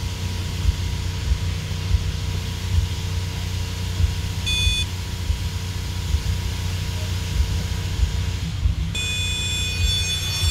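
Power Probe circuit tester beeping against the steady low rumble of an idling car engine: one short beep about four and a half seconds in, then a steady beep from near the end as the probe tip sits on the ABS module's ground wire, signalling that ground is present.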